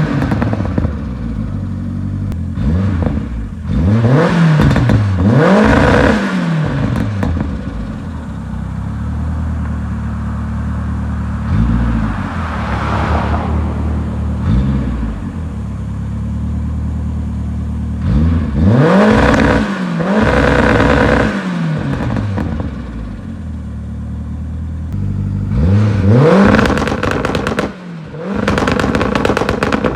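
Turbocharged 1.3-litre eight-valve four-cylinder engine of a 1989 VW Polo 86c, revved in short blips that rise and fall quickly and idling steadily between them. Near the end a rapid run of exhaust crackles and pops follows.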